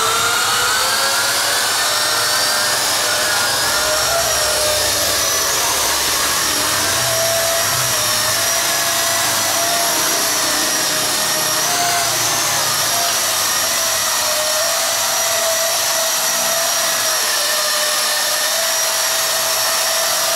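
Electric motors and propellers of a small quadcopter drone, with a ring-shaped propeller guard, spinning up for takeoff in a rising whine during the first couple of seconds. It then holds a steady, high buzzing whine while the drone hovers and flies.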